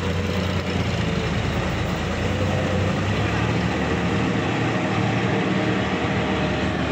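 Sonalika DI 50 RX tractor's diesel engine running steadily with a low hum as the tractor works through a flooded, muddy field.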